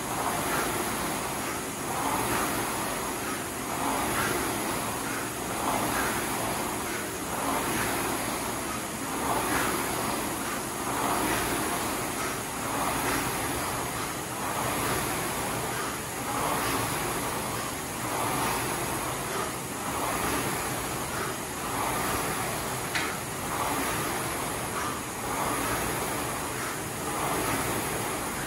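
Concept2 rowing machine's air-resistance flywheel whirring, swelling with each pulled stroke about once every two seconds. There is one sharp click about three-quarters of the way through.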